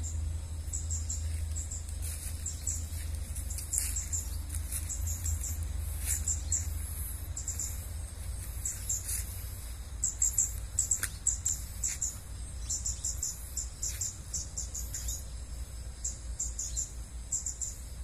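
Small birds chirping: quick runs of short, high-pitched notes throughout, busiest in the second half, over a steady low rumble.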